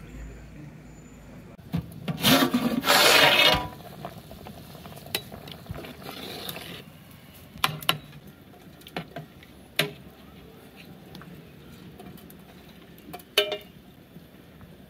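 Cooking utensils being worked: a loud scraping rub lasting about a second and a half near the start, a fainter scrape a few seconds later, and scattered light clicks and knocks.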